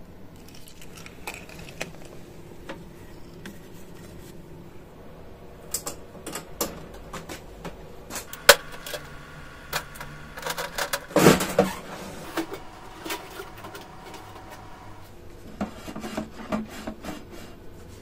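Handling noise of metal and plastic: a run of clicks, knocks and clatters as the sheet-metal cover of a portable diesel heater is unlatched and lifted off. The loudest knocks come about eight and eleven seconds in.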